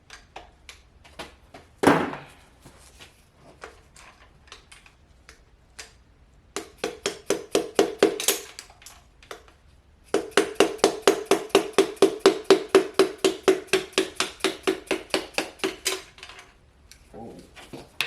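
Dead blow hammer tapping on a long driver pushed against a connecting rod, knocking a piston out of its bore in an LS 5.3 V8 block. A few scattered knocks come first, then rapid repeated strikes at about five a second, each with a short metallic ring.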